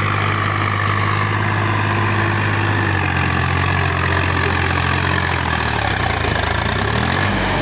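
Sonalika DI 50 RX tractor's diesel engine running steadily at an even pitch.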